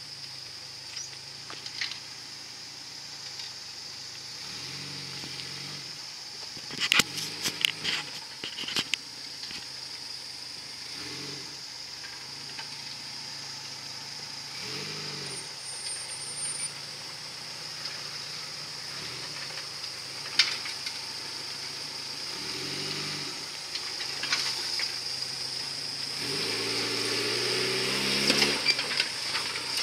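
Lifted Suzuki Samurai crawling over rocks, its engine revving up in short throttle bursts every few seconds. A cluster of sharp knocks comes about seven to nine seconds in, and the engine grows louder near the end as the vehicle comes close.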